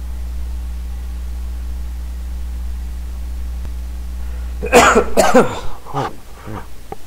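Steady low electrical hum, a recording fault, which drops out about two-thirds through as a loud, sudden burst of sound breaks in and fades within about a second.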